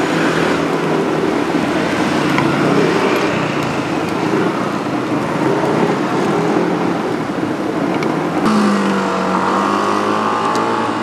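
Street traffic: a motor vehicle engine running close by with steady road noise, and another humming engine note coming in about eight seconds in.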